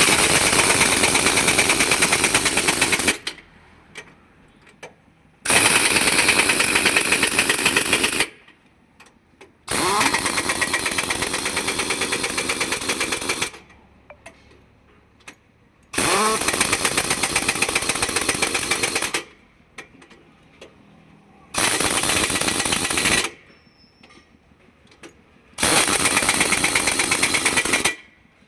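Pneumatic impact wrench hammering in six bursts of about two to four seconds each, undoing the wheel nuts on a tractor's rear wheel.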